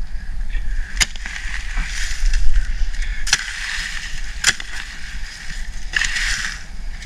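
A garden hoe chopping into loose soil and leaf litter: three sharp strikes, with dirt and dry leaves scraping and rustling between them.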